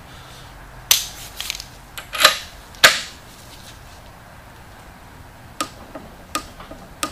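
Metal tool clicks and knocks as a torque wrench and deep socket are handled and fitted onto the fuel pump. The loudest knock comes about three seconds in. Near the end there are a few lighter clicks as the wrench is pulled to 40 foot-pounds.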